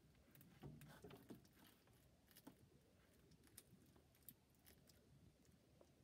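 Faint, irregular clicks and soft crunches of a bearded dragon biting and chewing a small piece of food, loudest about a second in.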